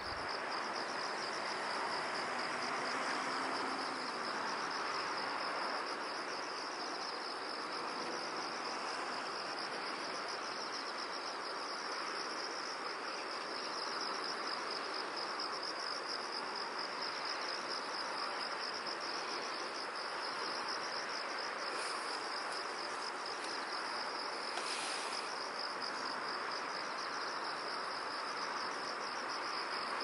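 Crickets trilling steadily in a continuous high chorus, over a soft even hiss.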